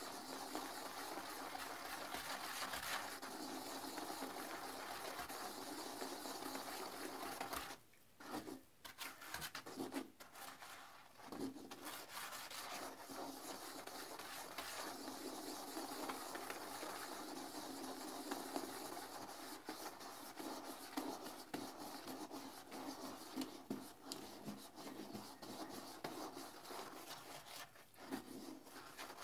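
Toilet brush scrubbing the inside of a porcelain toilet bowl in sudsy water: a steady, scratchy rub of bristles on the bowl. About eight seconds in it eases to a few separate strokes for several seconds, then the steady scrubbing resumes.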